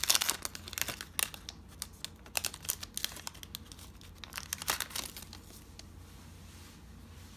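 Foil wrapper of a Panini football trading-card pack crinkling and crackling as it is peeled open and the cards are slid out, the crackles thickest in the first few seconds and thinning out near the end.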